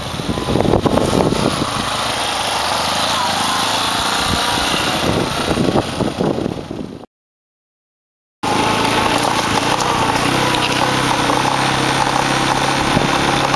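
Small motorcycle's engine running, with uneven knocks and rumble through the first part. About seven seconds in, the sound drops out for a moment, then the engine runs steadily, heard from aboard the moving bike.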